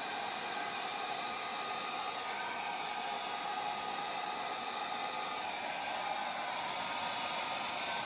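Revlon handheld hair dryer running steadily on its low setting, a continuous rush of air with a faint steady whine in it.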